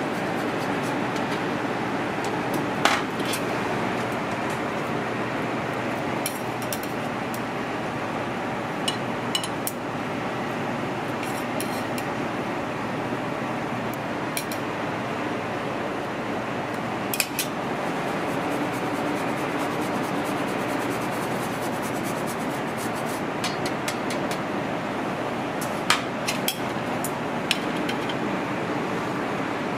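Metal kitchen utensils and tongs clinking now and then against steel trays and a stainless counter, a dozen or so short sharp knocks spread out, over a steady background hum.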